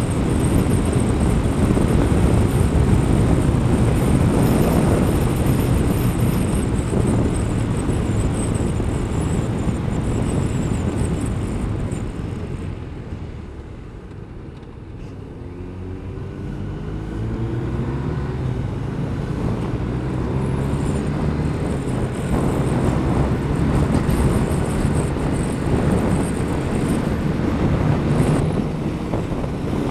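Wind rush and engine of a Kawasaki ZZR1200's inline-four at road speed. About halfway through the noise eases as the bike slows, then the engine note climbs as it accelerates again.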